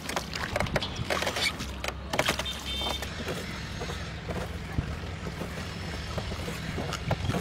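Wooden rowing boat under way: irregular knocks and splashes from the oar working in the water, over a steady low rumble.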